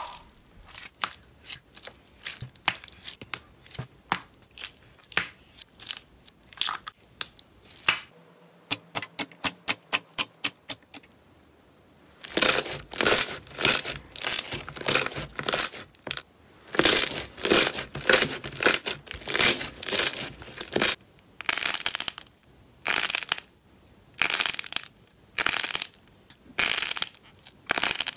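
Hands working slime: sticky clicks and pops as a clear pink jelly slime is squeezed, then a run of quick even clicks, then crackly squishing strokes as thick foamy slime is kneaded and stretched, repeating about once or twice a second.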